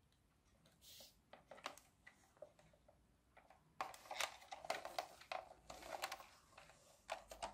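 Faint clicks and rubbing of fingers handling a plastic toy tractor, sparse at first and busier from about four seconds in.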